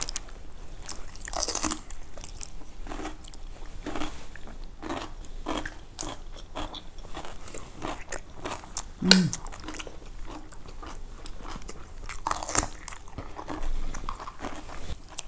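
Crisp crunching bites and chewing of chonggak-kimchi, young ponytail-radish kimchi, a crunch every second or so. One louder short sound about nine seconds in.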